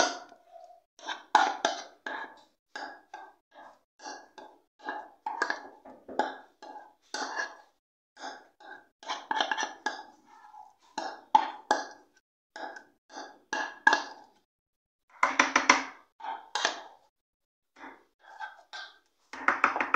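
Spoon scraping cake batter out of a plastic mixing bowl into a metal cake tin, in short irregular strokes and taps, two or three a second, louder about three quarters of the way through.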